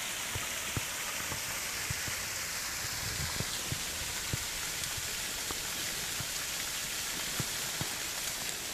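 Steady hiss of a tall waterfall's thin dry-season flow of water falling and splashing, with a few faint scattered ticks.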